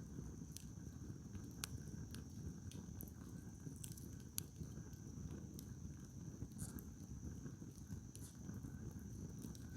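Wood campfire burning, with scattered sharp crackles and pops from the firewood over a low steady rush.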